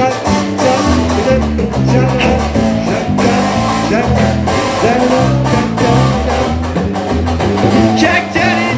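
Live band playing with no singing: guitar, with a hand drum keeping a steady beat over a repeating bass line.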